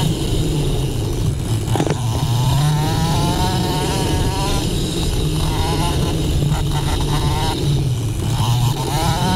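Off-road motorcycle engine revving under race throttle, its pitch climbing again and again, with a single sharp knock about two seconds in.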